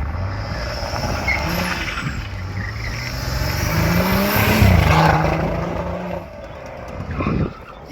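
A car engine accelerating, its pitch rising about four seconds in and loudest shortly after, then dropping away near the end.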